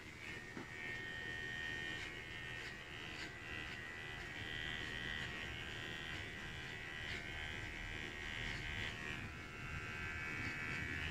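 Electric hair clipper buzzing steadily as it trims the hair at the nape of the neck, stopping right at the end.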